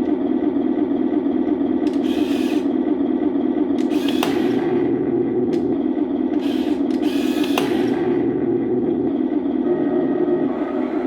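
Simulated tank engine sound from a Heng Long RC Sherman's onboard sound unit, running as a steady drone. Several short hisses break in over it, two of them starting with a sharp click.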